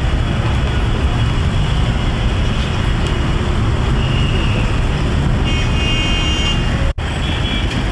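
Busy street traffic noise with a crowd of pedestrians talking, and a car horn sounding for about a second, starting about five and a half seconds in. The sound cuts out for an instant just before the end.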